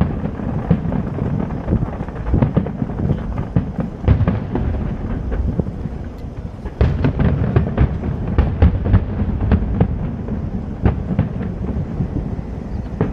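Aerial fireworks display: many shells bursting one after another, a low booming rumble broken by sharp bangs and crackles, with the bangs coming thickest in the middle.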